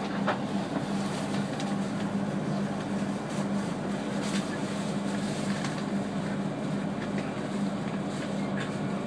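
Steady running noise inside the cabin of a moving E3-series Shinkansen, with a constant low hum under it and a few faint clicks.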